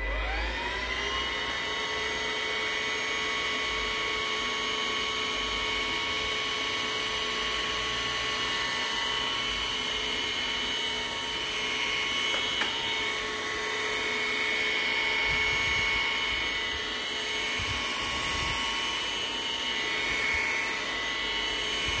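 Hericaine H10 cordless stick vacuum switched on, its motor whining up to speed over about a second, then running steadily with a high whine and airflow hiss as the floor head sucks flour out of tile grout lines.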